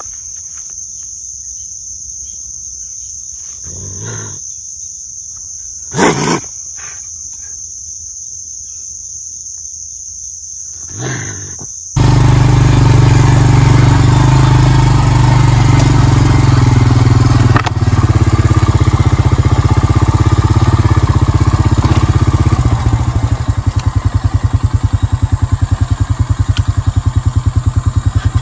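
A trapped raccoon calls out in short bursts three times, the loudest about six seconds in, over a steady high insect drone. About twelve seconds in, the sound cuts abruptly to a loud ATV engine running under way, which settles into an evenly pulsing idle near the end.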